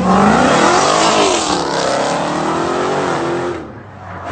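Dodge Challenger's engine revving hard as it accelerates, its pitch rising and falling several times, then cutting off suddenly about three and a half seconds in.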